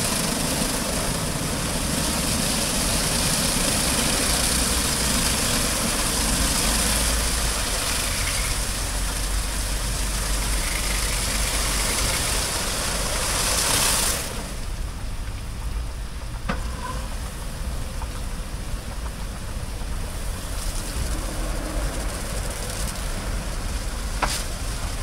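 Automatic rollover car wash gantry working over a car: a loud hiss of water spray and spinning brushes that cuts off suddenly about halfway through, leaving a lower steady machine hum with a few short clicks.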